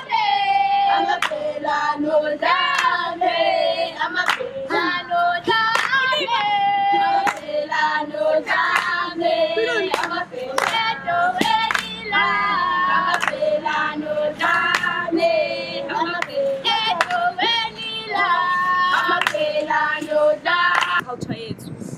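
A group of Zulu girls singing a traditional song together, with steady hand-clapping keeping the rhythm. The singing and clapping break off near the end.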